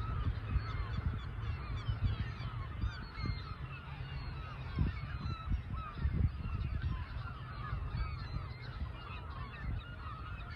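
A large flock of birds calling continuously, many short calls overlapping at once, over a low rumble.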